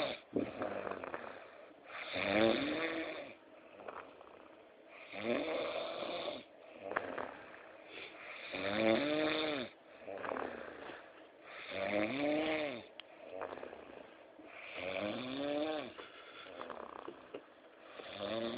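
A man snoring in his sleep, one long snore about every three seconds, each one rising and then falling in pitch.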